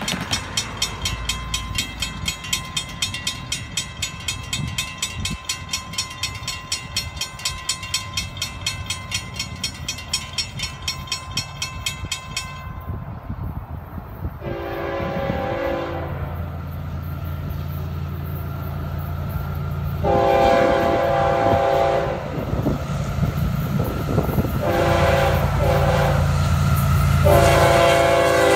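Railroad crossing bell dinging rapidly, stopping about twelve seconds in. Then a locomotive air horn sounds four blasts for the crossing over the growing low rumble of the approaching Florida East Coast GE ES44C4 diesel locomotives.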